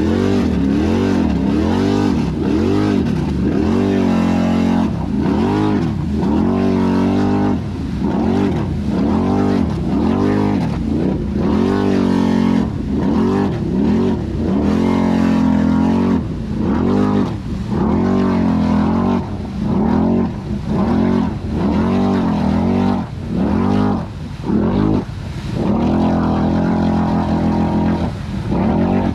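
ATV engine revving up and down in repeated throttle blips, about one rise and fall a second, dropping back several times in the second half.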